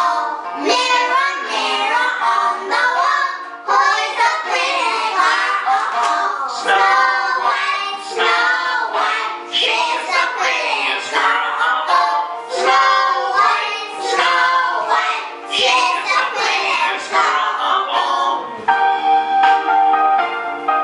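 A small group of young children singing a song together over a music backing track. Near the end the backing turns to steady, bell-like instrumental notes.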